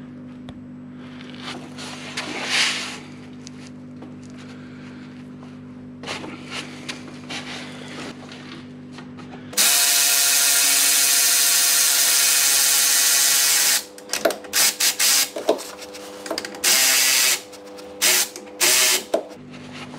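Cordless battery ratchet running a bolt on the alternator belt setup. It spins steadily for about four seconds, then in a string of short bursts as the bolt runs down. Quieter clinks of hand work come before it.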